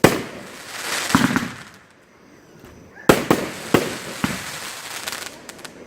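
A 500-gram consumer fireworks cake firing its shots: sharp bangs of the shells breaking, each followed by a long crackling hiss from the crackling willow effect. There is a lull in the middle, then three reports in quick succession about three seconds in.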